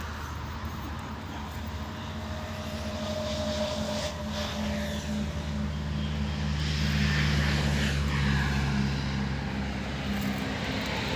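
A steady low engine drone that grows louder over the first several seconds and eases slightly near the end.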